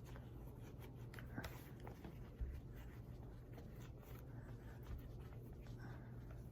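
Faint rubbing and small clicks of hands working a cleaning cloth over a stainless revolver, with one soft knock about two and a half seconds in.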